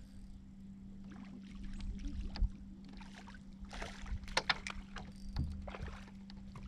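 Water splashing and a few sharp knocks against a fishing boat around the middle, over a steady low hum.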